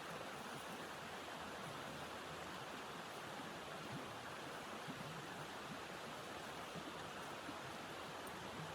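Steady rushing noise of strong wind blowing through a snowstorm, even and unbroken.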